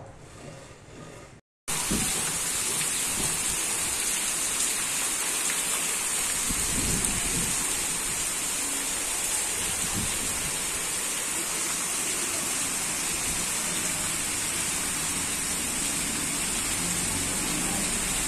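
Heavy rain falling steadily on a street and tiled rooftops, a dense even hiss that starts abruptly about a second and a half in.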